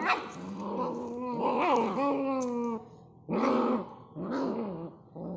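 German Shepherd puppies play-fighting and growling. There is a long run of growls over the first three seconds, then two shorter growls and a brief one at the end.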